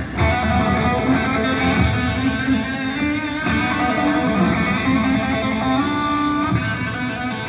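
Live rock band playing, with electric guitar to the fore holding sustained notes.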